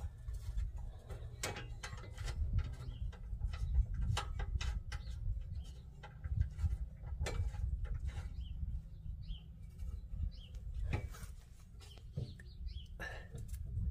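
Irregular metallic clicks and clinks as bolts and a steel steering box brace are handled and threaded in by hand, over a steady low rumble.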